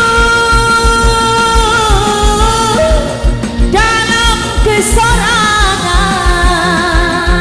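Band music with a steady drum beat under a long, held melody line that slides between notes.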